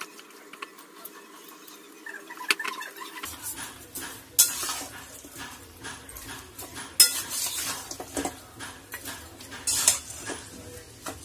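A metal spatula stirring and scraping spice-coated raw mutton and onions around a metal kadai, clinking against the pan in irregular strokes. The first few seconds are quieter; the louder scrapes come in the second half.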